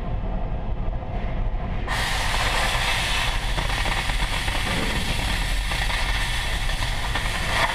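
Oxyacetylene cutting torch: the preheat flame burns with a low rumble, then about two seconds in the cutting-oxygen jet opens with a sudden loud, steady rushing hiss as it burns through the steel plate, cutting off near the end.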